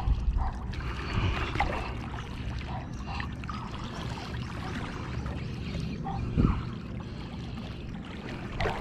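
Light water sounds in shallow sea water: drips falling into the surface and soft trickling and sloshing. Under them is a steady low rumble of wind or handling on the microphone, with a thump about six and a half seconds in.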